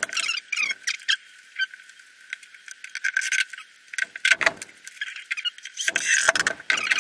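Boards and the pump wedge's fabric bag being handled on a wooden workbench: rustling, scrapes and small clicks, with a knock about four and a half seconds in. Near the end a cordless drill runs briefly, driving a screw into the boards.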